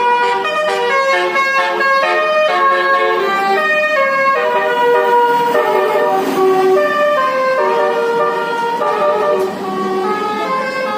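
Bus basuri (telolet) multi-tone air horn playing a melody: a quick run of short notes for the first few seconds, then longer held notes.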